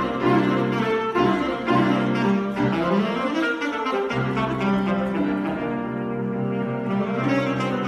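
Classical alto saxophone playing a fast, winding solo line over held low notes in the accompaniment.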